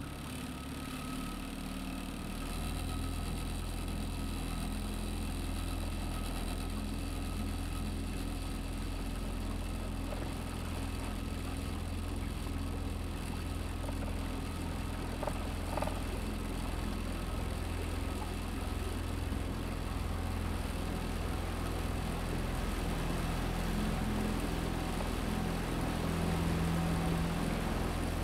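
A small boat's engine running steadily at low speed, a continuous low hum.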